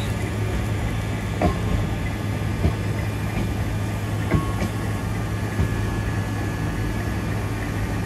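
Siemens Class 360 Desiro electric multiple unit moving slowly past under its own power: a steady low hum, with about four sharp knocks from the wheels on the track spread through.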